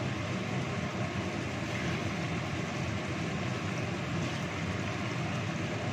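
Steady low rushing noise of a stovetop burner heating a wok of chicken simmering in spiced sauce.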